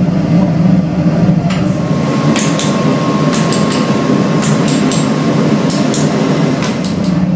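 A steady low workshop drone, with a scattering of sharp metallic clinks and knocks as steel moulding flasks for sand casting are handled. The clinks start about a second and a half in and come irregularly until near the end.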